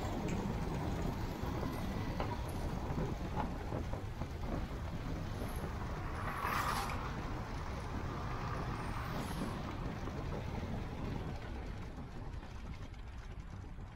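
Steady low rumble of a car driving, road and wind noise, with a brief louder hiss about halfway through.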